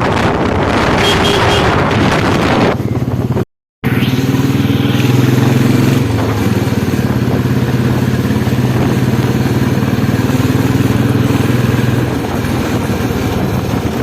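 2008 Royal Enfield Bullet single-cylinder engine running while riding, at first half-buried in wind noise on the microphone. After a sudden cut about three and a half seconds in, the engine runs at a steady pitch, easing off slightly near the end.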